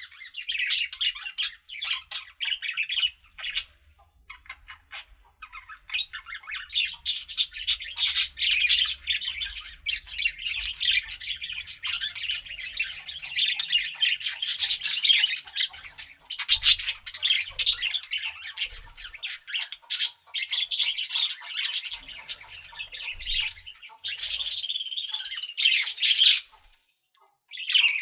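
Budgerigars chattering and warbling with rapid chirps and squawks, a few short pauses between bursts.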